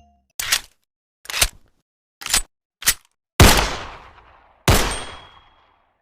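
Sound effects at the end of a ringtone: six sharp hits, four short ones in quick succession, then two louder blasts that each ring away over about a second.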